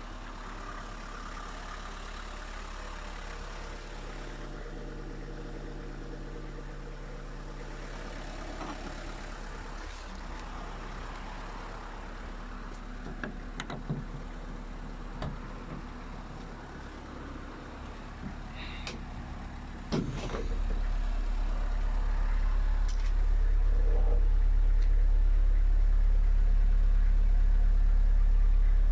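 Fiat Fiorino van's engine running steadily, with a few light clicks in the middle. A sharp knock comes about twenty seconds in, after which the low engine rumble gets louder, and it steps up again a few seconds later.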